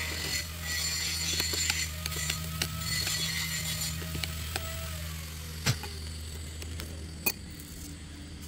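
A wrench working a fitting off the wire end of a submersible well pump motor: scattered metal clicks and scraping, then two sharp metal clanks near the end, over a steady low hum.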